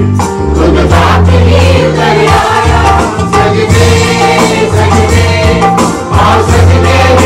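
A group of carol singers singing a Christmas carol together to an electronic keyboard, which holds steady bass notes that change about once a second.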